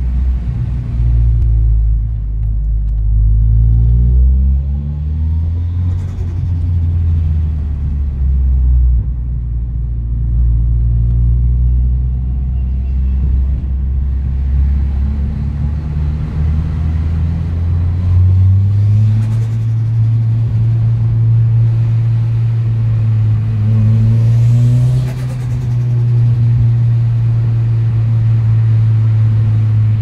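Toyota Celica GT-Four's turbocharged 3S-GTE four-cylinder engine heard from inside the cabin, pulling up through the revs and dropping back several times. Turbo flutter, the chattering surge of air at the compressor, comes as the throttle is lifted.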